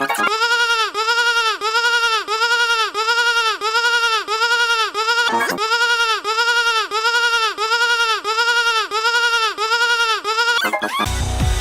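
Sheep bleat sound effect repeated in a fast, even loop, about two and a half bleats a second, each bleat's pitch rising then falling; there is a short break about five and a half seconds in. Near the end the bleating stops and music with a heavy bass takes over.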